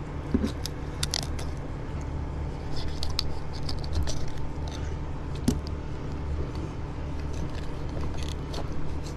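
Fillet knife working along a gafftopsail catfish's backbone and rib cage, with scattered clicks and scrapes of the blade on bone, over a steady low hum.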